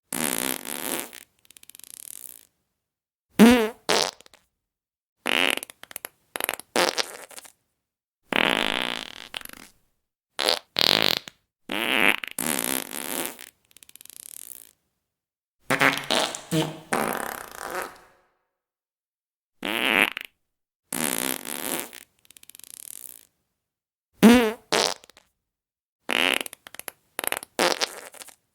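Fart sound effects, one after another with short silent gaps. Some are short with a wavering pitch, others longer and hissier.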